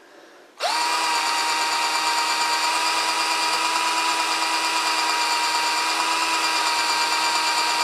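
Cordless drill starting about half a second in and running at a steady whine as it bores a hole through a thick aluminium casting.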